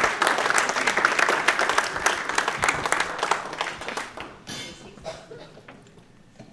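Audience applauding, the clapping thinning out about four seconds in and dying away near the end.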